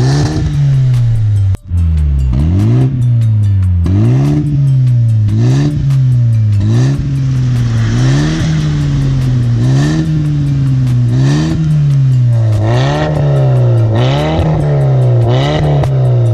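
BMW F30 3 Series with an aftermarket valvetronic exhaust, its engine revved over and over in quick throttle blips, the pitch rising and falling about every second and a half. There is a brief break about a second and a half in.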